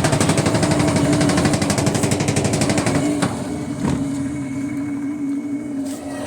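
Washing machine drain pump running with a steady hum and a fast rattling buzz. The rattle eases about three seconds in, leaving mainly the hum, with a couple of clicks. The noise is the sign of a failing pump that needs replacing.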